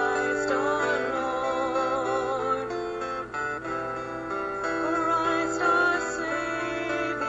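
Music for the offertory at a Mass: a singer's voice with vibrato over sustained instrumental accompaniment.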